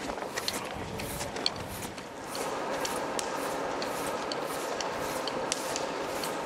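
Footsteps in rubber boots with the light clinking of harness and rope hardware carried along, irregular clicks throughout. About two seconds in the background changes to a steady hum, as of the inside of a hangar.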